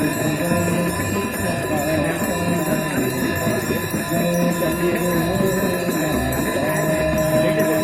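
Hand bells of a Hindu aarti ringing without a break over devotional music with chanting.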